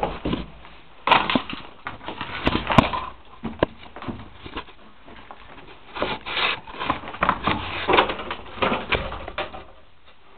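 Footsteps and scrapes on rock as someone scrambles through a narrow passage: two bursts of crunching steps and scuffs, the second starting about six seconds in and stopping shortly before the end.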